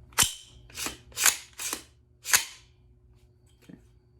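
Sharp metallic clacks of an AR-15 pistol being cleared by hand: its action worked to make sure it is unloaded. About five clacks in two and a half seconds, then a faint one near the end.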